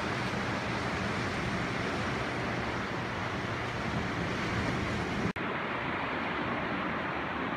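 Steady rush of travel noise from a moving vehicle, wind and a low engine hum together. About five seconds in it cuts out for a split second, then goes on slightly duller.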